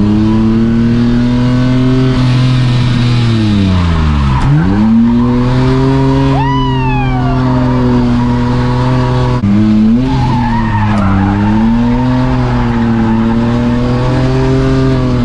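Toyota AE86 Trueno's engine held high in the revs while drifting, its pitch swinging up and down, with a deep drop in revs about four seconds in and a sudden jump in the note about halfway through. A short tyre squeal falls in pitch about six seconds in.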